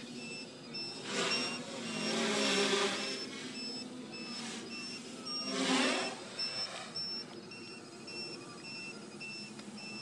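Quadcopter motors surging in bursts as it is flown and flipped high overhead: three swells, the loudest and most sharply rising and falling near six seconds. Under them a high beep repeats steadily about twice a second.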